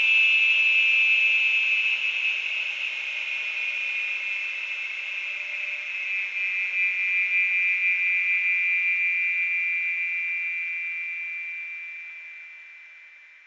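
Electric saw running with a steady high-pitched whine, fading out over the last few seconds.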